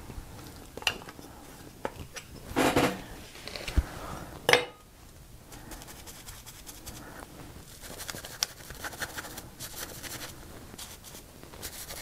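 Clicks and knocks of a paint jar and a plastic stencil being handled on the work table, the loudest a sharp knock about four and a half seconds in. Then a run of quick light taps as a sponge dabs white acrylic paint through the plastic stencil onto paper.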